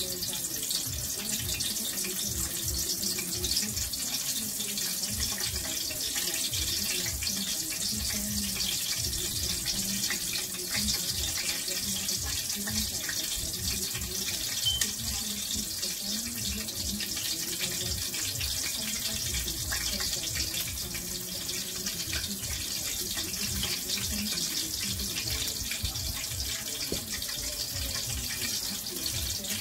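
Chicken frying in a pot of hot oil: a steady sizzling hiss with fine crackles throughout.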